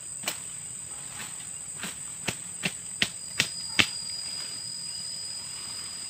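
A steady high-pitched insect trill. Over the first four seconds a run of about eight sharp clicks or snaps comes faster and louder, then stops.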